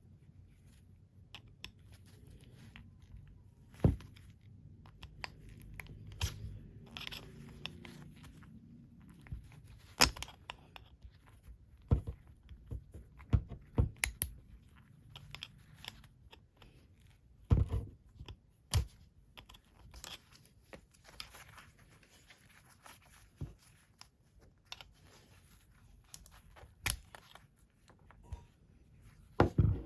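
Irregular clicks, knocks and scraping from hand work on clothes-dryer parts and tools. A few sharp knocks stand out, about ten seconds apart.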